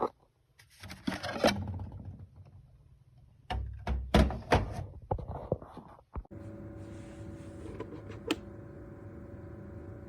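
Knocks and thunks of the HomBreez air purifier and humidifier combo being handled. About six seconds in there is a click, then a steady hum with a constant tone as the unit's fan starts running.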